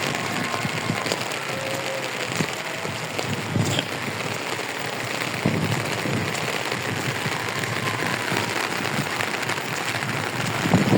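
Rain falling, a steady hiss of drops on surfaces.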